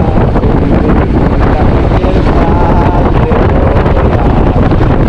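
Wind buffeting the microphone of a handlebar-mounted camera on a moving motorcycle, loud and steady, with the motorcycle running underneath it.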